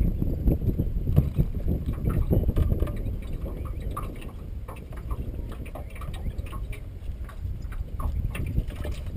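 Wind buffeting the microphone in an uneven low rumble, with small irregular knocks and clicks.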